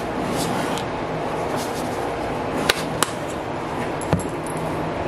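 A fan running with a steady whir and a low hum, with three sharp clicks partway through.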